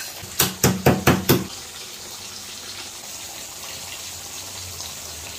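Wooden spatula knocking against a kadai about five times in quick succession as dry-roasted horse gram and spices are stirred, followed by a steady hiss.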